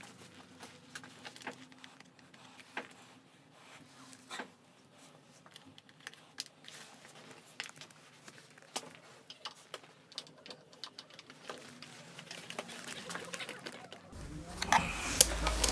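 Scattered light clicks and taps of hands working on a scooter's handlebar wiring and plastic cover. Near the end a louder rustling starts.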